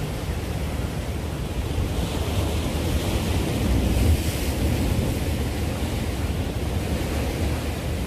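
Sea waves breaking and washing against the rocks of a breakwater, with wind buffeting the microphone as a low rumble. The surf swells from about two seconds in, is loudest around the middle, then eases.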